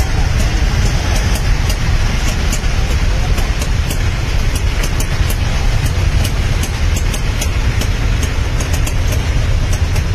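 Steady roadway traffic noise from a jam of cars, vans, motorbikes and auto-rickshaws: a dense, even rumble with no single vehicle standing out.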